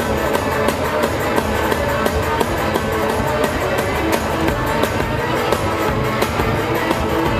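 Live one-man-band music: a banjo picked fast over a back-mounted bass drum and percussion keeping a quick, steady beat, with no singing, heard through the hall's sound system.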